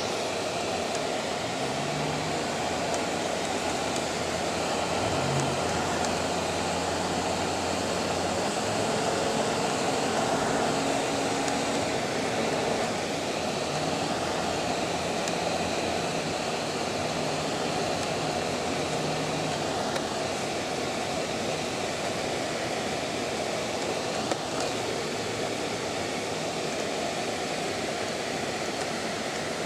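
Steady road noise of a moving car heard from inside the cabin: tyres and wind rushing evenly, with a low engine hum that drops away about nine seconds in.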